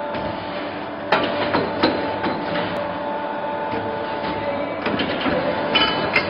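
CNC pipe bender running through a bend: a steady machine hum with clunks and knocks as the clamp and bend die move. It grows louder about a second in.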